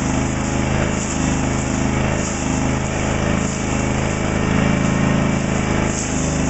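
The Honda petrol engine of a portable log-rounding machine running steadily under load, its pitch wavering slightly, with a hiss above it as the cutter head takes a rough rounding pass along the log.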